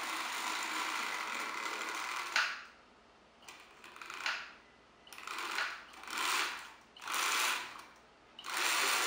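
Postwar Lionel 2025 steam locomotive's electric motor and gears whirring steadily as the train runs on the O-gauge track, cut off with a sharp click about two and a half seconds in. After that the motor whirs in short bursts of about a second each, starting and stopping, as the train is inched along to bring the lumber car into position.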